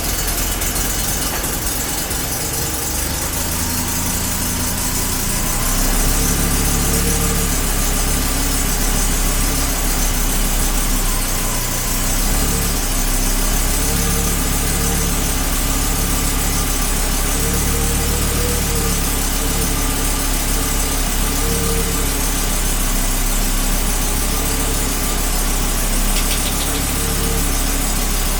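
Audi 90 quattro's five-cylinder engine, with K-Jetronic mechanical fuel injection, idling steadily with its oil freshly changed, a little fuller from about six seconds in; the owner judges it to be running well.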